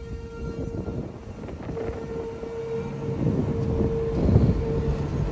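Rumbling road and wind noise inside a moving vehicle driving through a storm, with a steady droning tone that keeps cutting in and out. The rumble grows louder toward the end, peaking about four seconds in.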